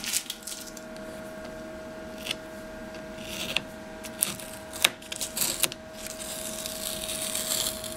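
Masking tape being peeled off car bodywork from beside a silicone-bonded trim strip, in two rasping pulls with a few small clicks, over a steady faint hum.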